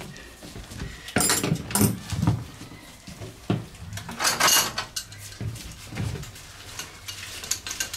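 Metal hand tools clinking and clanking as wrenches are picked up and handled. The knocks come irregularly, a few times over several seconds, over a faint steady low hum.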